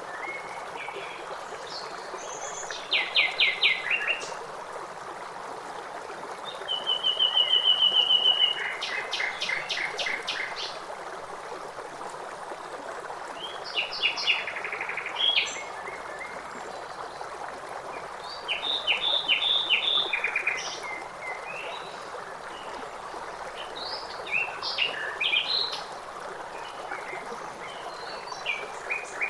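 Songbirds singing in short separate phrases every few seconds, made of rapid repeated notes and trills, over a steady rush of flowing water.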